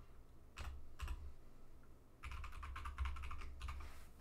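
Computer keyboard typing a password: two separate keystrokes in the first second, then a quick run of keystrokes from about halfway through until just before the end.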